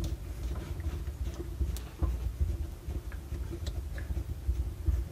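Faint scattered ticks and light rubbing from a faucet water supply line's coupling nut being unscrewed by hand, over a low steady hum.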